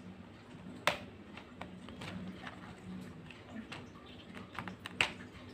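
Hard plastic parts of a toy car-carrier truck and its toy cars being handled: scattered small clicks and taps, with two sharper clacks about a second in and near the end, over a faint steady hum.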